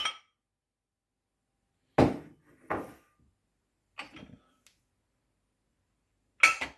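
A few separate knocks and clinks of crockery bowls being handled in a dishwasher's upper rack, the first a duller thump, with silence between them.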